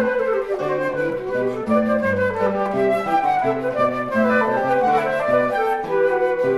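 Two flutes and a classical guitar playing a Baroque trio sonata movement at a moderate pace: the flutes weave melody lines over the guitar's moving bass notes.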